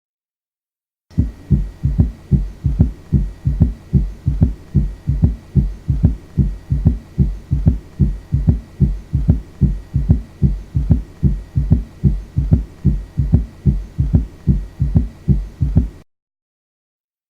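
Recorded human heart sounds: a fast, regular series of low beats. They start about a second in and stop suddenly near the end.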